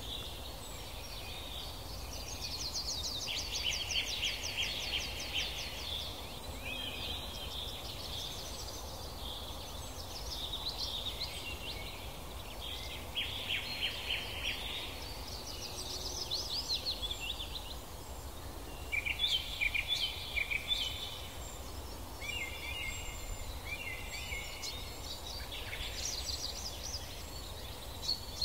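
Small songbirds singing: high, fast trilled phrases that come and go every few seconds, over a steady low outdoor rumble.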